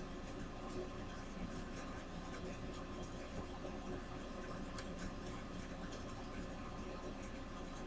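Steady low hum and hiss of room tone, with faint scattered ticks and light scratches from a fine paintbrush being worked on a picture frame.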